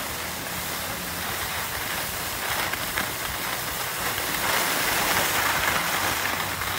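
Skis hissing and scraping over packed, groomed snow as they slide downhill, growing louder about two-thirds of the way through. A faint steady low hum sits underneath.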